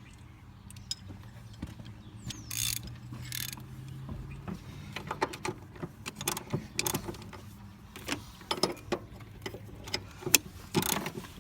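Hand tools on metal: a quiet start, two short rushes of noise a couple of seconds in, then an irregular run of clicks and clinks of wrench and socket work on the engine-mount bolts that grows busier toward the end.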